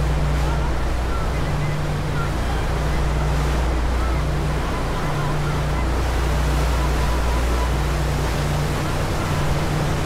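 Passenger ferry under way: a steady low hum from the engines under the rush of the churning wake, with wind on the microphone.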